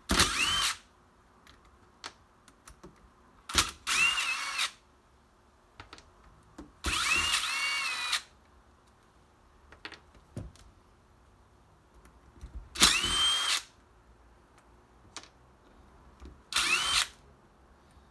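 Cordless impact driver in reverse backing out the screws of a Bafang Ultra mid-drive motor's controller cover: five short runs a few seconds apart, each rising in pitch as the motor spins up. A few light clicks fall between the runs.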